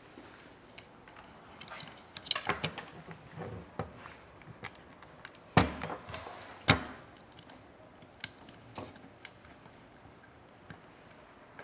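Hands working a Wheatstone bridge apparatus: scattered small clicks and knocks, a quick flurry about two seconds in, and two sharper knocks about a second apart near the middle.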